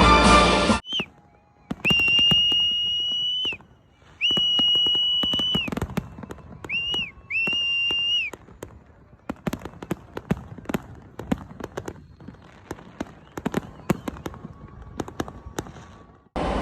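Fireworks popping and crackling with many sharp bangs, while a shrill, steady whistle is blown five times in the first half: two long blasts, then three short ones.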